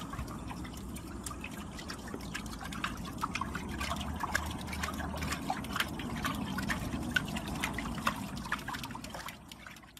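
Pool water sloshing and dripping, with many small, quick splashes as a Chihuahua held in a plastic paddling pool paddles its legs.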